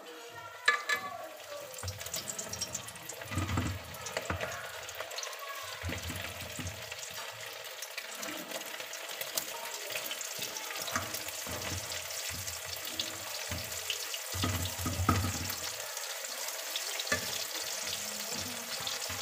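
Pieces of fish sizzling in hot oil in a steel kadhai as more are dropped in, the hiss growing louder, with a few sharp clinks of metal.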